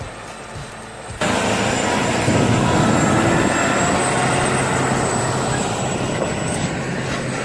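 Quieter background that cuts suddenly, about a second in, to a heavy engine running steadily with a low hum under loud mechanical noise.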